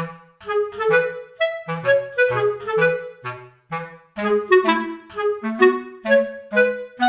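Background music: a bouncy instrumental tune of short, separate notes, a melody over a bass line.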